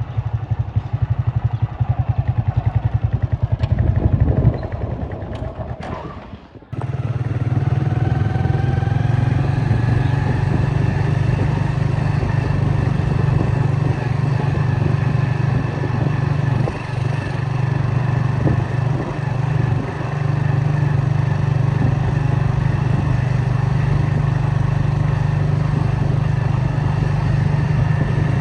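A vehicle engine running steadily, heard from on board along with road noise. It drops out briefly about six and a half seconds in, then carries on.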